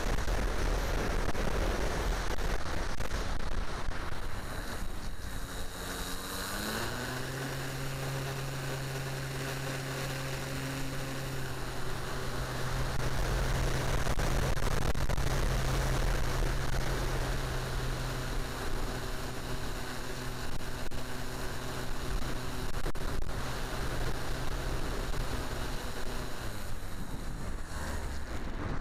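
Electric motor and three-blade propeller of an RC model plane (E-flite Power 10 brushless motor) heard from an onboard camera under heavy wind noise on the microphone. About six seconds in the motor hum rises in pitch to a steady drone, holds, then drops away near the end.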